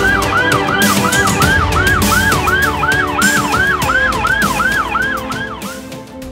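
Police car siren in fast yelp mode, a rising-and-falling wail repeating about three times a second, over background music. The siren stops shortly before the end, leaving the music.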